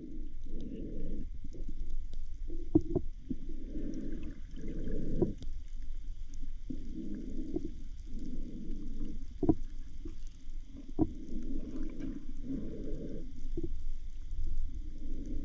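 Muffled, uneven whooshes of moving water heard through an underwater camera, each lasting about half a second to a second, over a low steady rumble, with a few sharp clicks.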